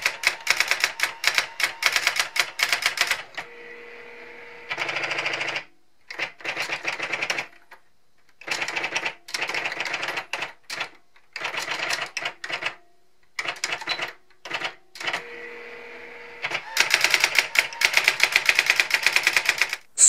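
Brother SX-4000 electronic daisywheel typewriter typing: bursts of rapid, even print strikes with short pauses between them. Twice a quieter steady motor hum comes in between the bursts.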